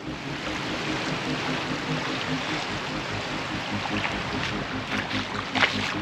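Sea water washing and lapping around a tidal sandbar as the tide comes in, a steady rushing noise, with a low, even throb beneath it.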